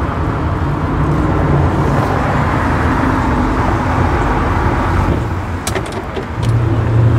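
A2 heritage tram running on its rails, heard from aboard: a steady rumble of wheels and motor through a curve, with a few sharp clicks about six seconds in.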